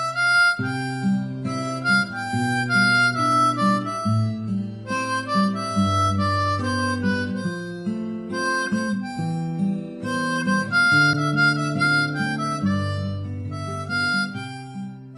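Background music: an instrumental tune, a melody of short notes over a bass line, fading near the end.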